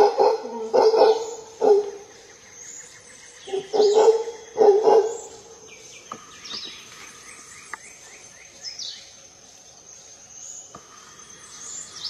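Howler monkey roaring in short barking bursts, a cluster in the first two seconds and another around four to five seconds in. Between and after the roars, a bird chirps in runs of short falling notes.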